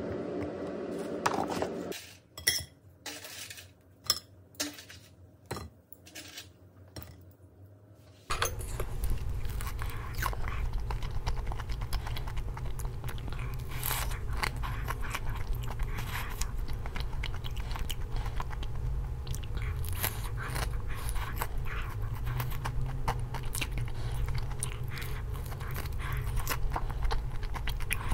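A metal spoon clicks and scrapes in a glass cup while ice cream is scooped, in sharp separate clinks. About eight seconds in this changes to biting and chewing crisp-edged bungeoppang (fish-shaped pastries), with many small crunches over a low steady hum.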